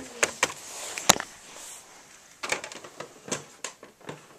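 Light clicks and knocks from plastic toys being handled and moved about, a few at first and then a quicker cluster near the end.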